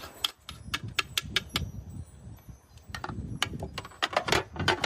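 Cooking utensils and a pot clinking and tapping in a quick, irregular run of sharp clicks.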